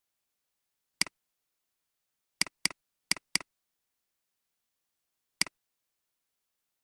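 Computer mouse button clicks in otherwise dead silence: a single click about a second in, two quick double-clicks in the middle, and another single click about five seconds in.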